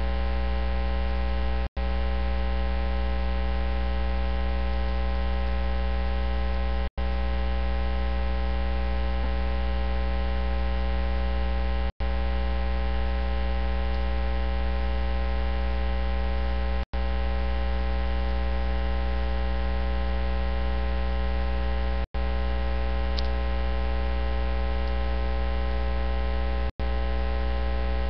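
Loud, steady electrical mains hum in the audio feed: a low hum with many overtones, and no speech coming through. The sound drops out completely for an instant about every five seconds, six times.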